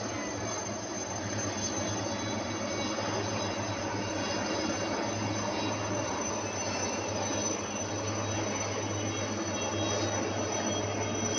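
A formation of military helicopters flying past, giving a steady drone of engines and rotors.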